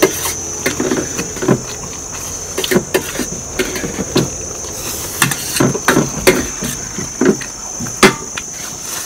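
Irregular clinks, knocks and scrapes of spoons against plates while eating, over a steady high drone of insects.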